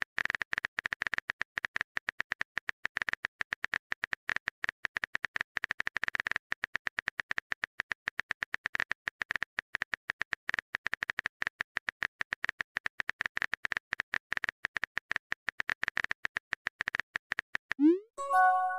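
Phone keyboard typing sound effect: a rapid, unbroken patter of tiny clicks. Near the end a short rising pop with a brief chiming tone marks a chat message appearing.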